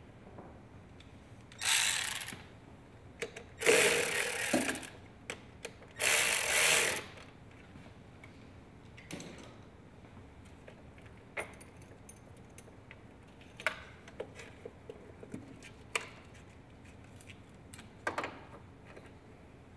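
Ratchet wrench clicking in three quick bursts, then scattered light clicks and knocks of hand tools and parts.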